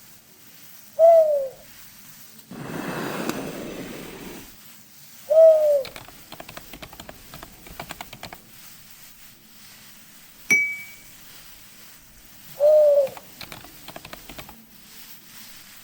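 A string of homemade foley effects: three short falling coos like a dove's, spaced several seconds apart, a rushing noise lasting about two seconds, runs of rapid clicking, and a single sharp strike that leaves a brief ringing ding.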